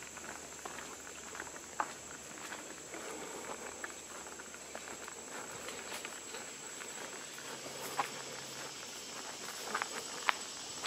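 Footsteps on a leaf-strewn dirt forest trail, with a few sharp snaps underfoot, loudest about two seconds in, at eight seconds and near the end. A steady high-pitched hiss runs underneath.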